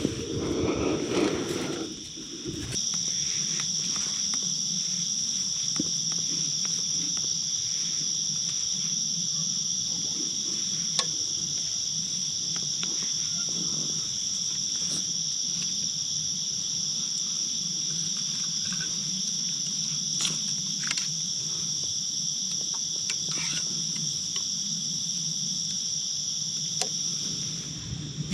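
Steady chorus of night insects, an even high two-tone trill, with a low steady hum beneath it. There is a brief rustle in the first couple of seconds, and the chorus comes in about three seconds in and cuts off just before the end.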